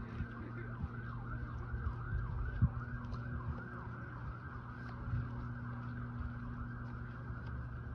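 Emergency vehicle siren sounding at a distance, in a fast yelp of about two to three sweeps a second that gives way about halfway through to a steady high tone.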